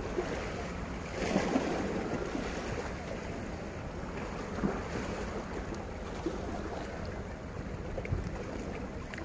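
Wind rushing over the microphone on top of sea water washing against shore rocks, swelling louder for a moment about a second in.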